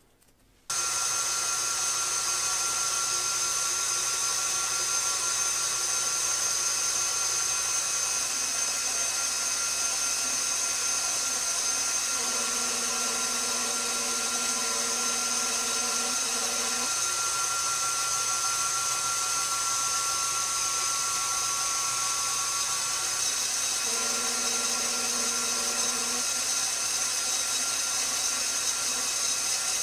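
KitchenAid stand mixer motor running steadily, driving the stainless steel pasta roller attachment as dough is rolled: a steady motor whine and hum that starts suddenly about a second in. A lower tone comes and goes twice.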